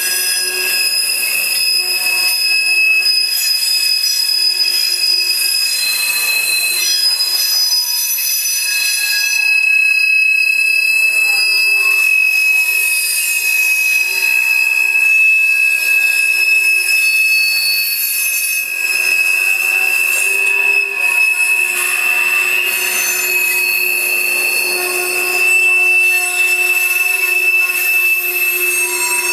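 Steel wheels of a freight train's covered hopper cars squealing as they roll through a curve in the track: a steady, high-pitched squeal of several pitches that come and go as the cars pass.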